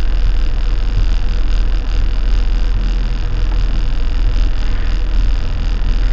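Boat engine running steadily at low speed, a constant low rumble with a faint hiss of wind and water over it.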